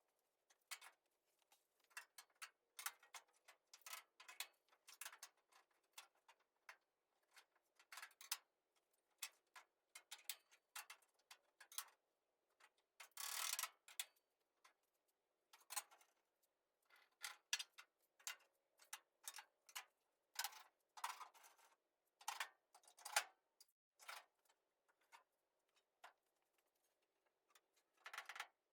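Faint, irregular clicks, taps and knocks of hand work on an early Ford Bronco body, as tools, clamps and body panels are handled, with a longer scrape about halfway through.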